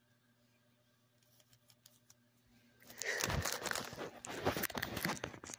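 Yu-Gi-Oh booster pack's foil wrapper crinkling and tearing as it is handled and opened. A few faint ticks come first, and the loud, dense crinkling starts about halfway through.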